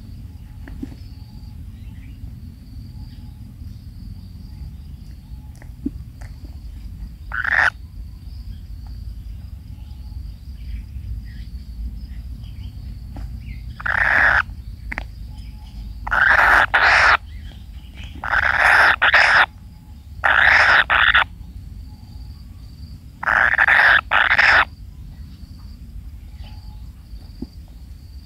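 Kingfisher chicks giving harsh, rasping calls: one short burst about a third of the way in, then five loud bursts of about a second each over the second half, some broken in two. A low steady hum and a faint high insect-like tone sit under them.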